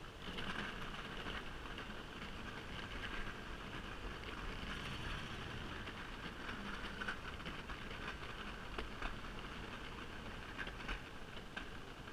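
Evolve Bamboo GTX electric skateboard under way on rough asphalt. The belt-driven hub motors whine steadily over the rumble of the wheels, with scattered clicks as the wheels cross cracks. The sound comes in sharply a moment in as the board sets off.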